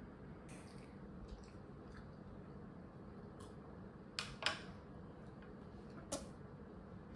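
Quiet room tone with a few short, soft clicks; the loudest are a pair about four seconds in, and another comes about six seconds in.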